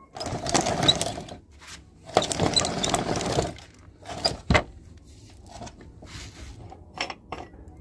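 Hand-cranked meat grinder turned by its flywheel, its auger grinding up a doll in two loud bursts of about a second each, followed by a few sharp clicks and knocks.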